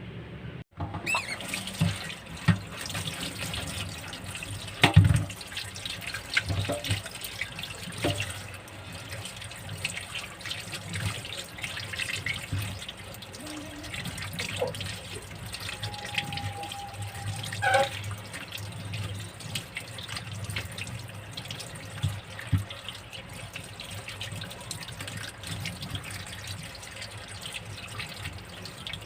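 Tap water running into a sink while fresh oregano leaves are rinsed under it by hand, with scattered knocks and clatter.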